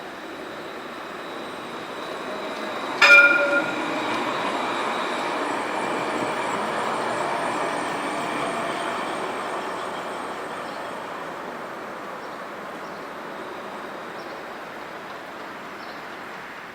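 Tram running on its rails, the rolling noise swelling and then slowly fading. About three seconds in there is a brief, loud ringing warning signal from the tram.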